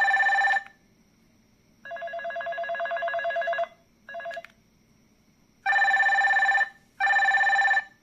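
MarQ M70 Shakti keypad feature phone's speaker playing buzzy electronic ringing tones in separate bursts: a short one, then a longer one that swells louder over about two seconds, a brief blip, and two one-second bursts near the end.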